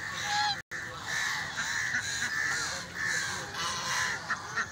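A flock of white domestic geese honking, with many calls overlapping in a continuous chorus. The sound drops out briefly about half a second in.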